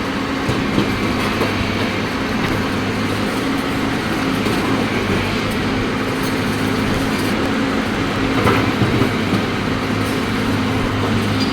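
CAT excavator's diesel engine running steadily, with a few knocks, the loudest about eight and a half seconds in, from the machine working the concrete.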